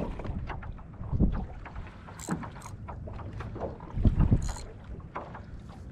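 Water slapping and splashing against a small kayak's hull, with wind on the microphone. Two low thumps come about a second in and about four seconds in.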